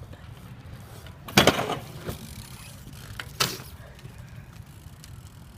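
BMX bike being ridden on steps: two loud clattering impacts about two seconds apart, over a steady low rumble.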